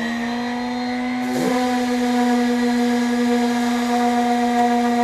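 Electric dual-action (DA) sander with 60-grit paper running at a steady speed, one pitch with many overtones. About a second and a half in, the pad is set on the panel: the pitch dips briefly and a sanding hiss joins the motor as it starts cutting through the rolled-on bed-liner coating.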